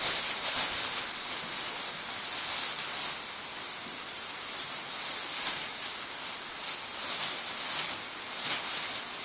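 Plastic garbage bag rustling and crinkling as it is handled, in an irregular, continuous hiss.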